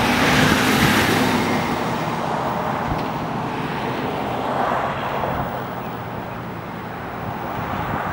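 Outdoor wind and road-traffic noise that swells twice, about a second in and again around five seconds, as vehicles pass. No elk call is heard.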